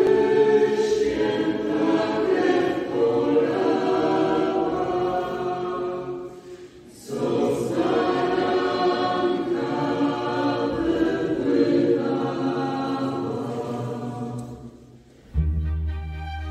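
A group of voices singing a hymn in church, in two long phrases with a short break between them. Near the end the singing gives way to instrumental background music.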